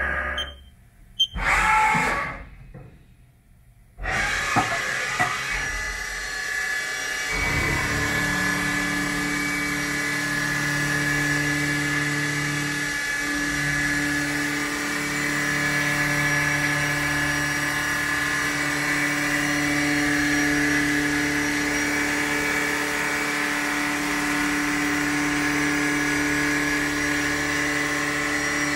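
2001 Haas VF-2B CNC vertical mill running, its spindle driving an end mill that is cutting circular pockets into a round metal plate, with a steady pitched hum and whine. The first few seconds hold a short burst of sound and a near-silent gap before the machine sound comes in and settles.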